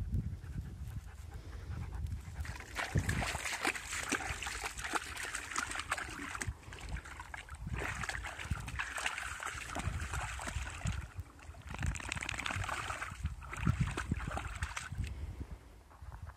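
Dog panting rapidly in spells of a few seconds, with some splashing as it wades through a shallow muddy puddle.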